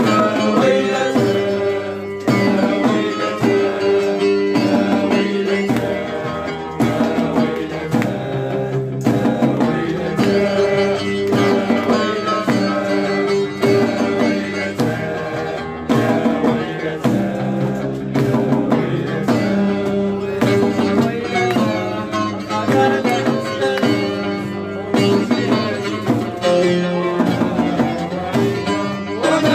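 Music played on plucked string instruments over hand drums in a steady, driving rhythm.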